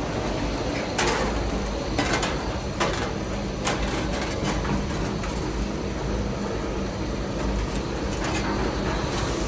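PCB component dismantling machine running with a steady hum. Sharp metallic clatters, like parts or boards knocking inside, come about once a second in the first few seconds and again near the end.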